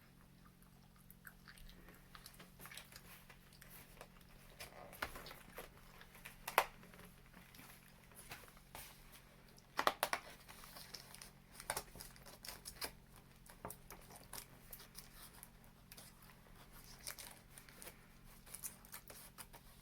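Quiet chewing and crunching of sweets, with scattered crinkles and clicks of wrappers being handled; the sharpest clicks come about six and a half and ten seconds in.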